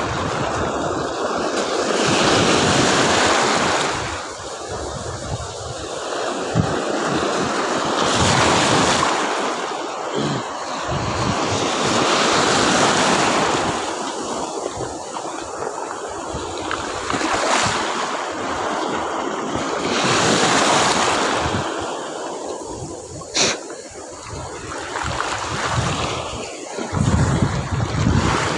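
Sea surf washing and breaking in shallow water, swelling and easing every few seconds, with wind buffeting the microphone. One sharp click about two-thirds of the way through.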